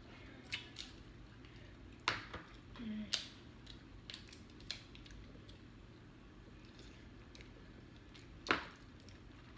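Crab-leg and shrimp shells being cracked and peeled by hand: scattered sharp cracks and snaps, the loudest about two seconds in and again near the end.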